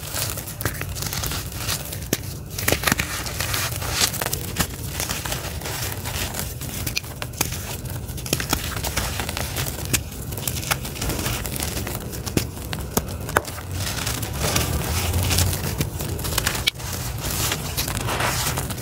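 Bare hands crushing and rubbing gritty charcoal lumps and powder on a floor: continuous gritty crunching and rustling, broken by many sharp crackles as lumps snap apart.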